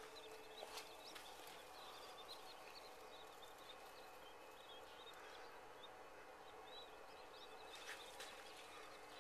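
Faint, rapid high-pitched peeping of Chinese painted quail chicks, with a few soft ticks near the start and near the end.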